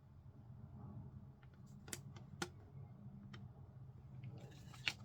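Handling noises from the watch box and its papers: two sharp clicks about two seconds in, then light rustling and another sharp click near the end, over a low steady room hum.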